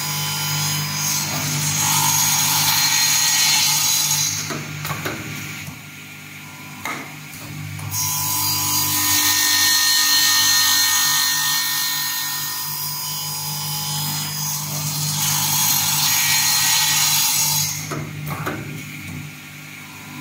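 Automatic circular-saw cut-off machine cutting wooden blocks to length: the electric motor hums steadily while the blade makes three long cutting passes through the wood. Between cuts there are quieter gaps with a few short clacks.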